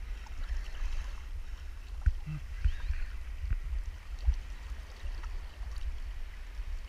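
Sea water sloshing and lapping around a wading angler, with a steady low rumble of wind on the microphone. A few soft knocks come through, about two, three and four seconds in.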